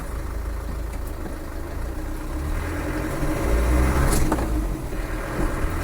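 Land Rover 300Tdi 2.5-litre four-cylinder turbo-diesel running while driving, with a steady low rumble that grows louder partway through as it pulls. A brief click about four seconds in.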